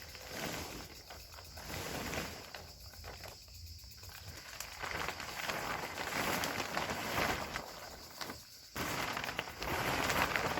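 Irregular rustling and crackling handling noise, typical of UV-treated plastic weed-barrier sheeting being spread over garden beds. It dips about eight seconds in and comes back abruptly louder.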